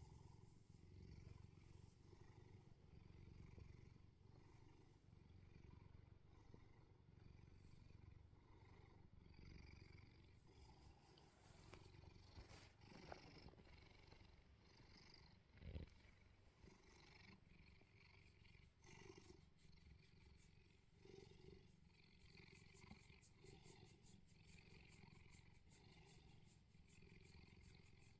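Bengal cat purring faintly and steadily as it is stroked, with a brief soft thump a little past the halfway point.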